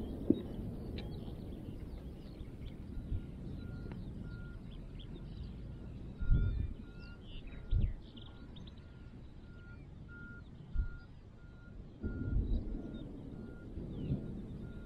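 A vehicle's reversing alarm beeping steadily at one pitch, about one and a half beeps a second, starting a few seconds in and stopping near the end. Under it a low rumble with a few dull thumps, and scattered faint bird chirps.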